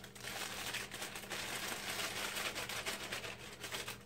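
Plastic inner bag of a boxed cake mix crinkling and rustling as the dry mix is shaken out of it into a bowl; the rustling stops suddenly near the end.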